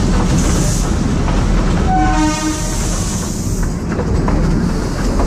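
Matheran toy train, a narrow-gauge hill railway, running with a steady rumble and rail clatter, heard from the coach doorway. A single short horn blast of about half a second sounds about two seconds in.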